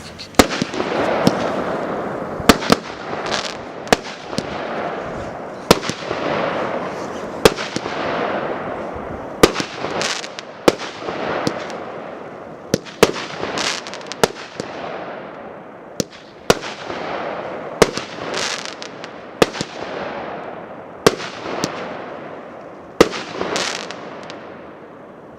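Shapka Monomakha Р8101 fireworks cake, 15 one-inch shots, firing in sequence. A sharp bang comes about every second and a half, each followed by a crackling hiss as the gold palm breaks with crackle tips, and the crackle fades near the end.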